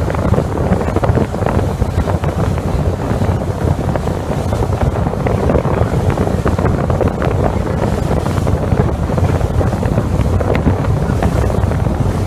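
Steady wind rush on the microphone aboard a wooden Venetian water taxi under way, with its motor running and water rushing along the hull.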